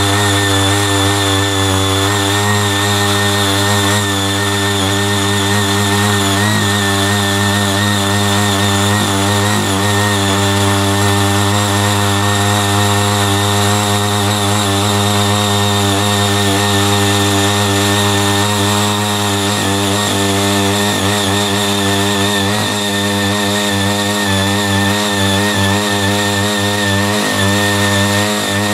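Small engine of a CY80 walk-behind power tiller running steadily at working speed as its rotary tines till soil. The pitch wavers slightly now and then in the second half.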